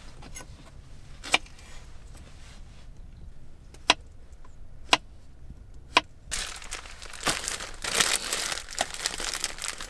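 Four separate sharp clicks, then about three and a half seconds of packaging crinkling and rustling as it is handled and opened.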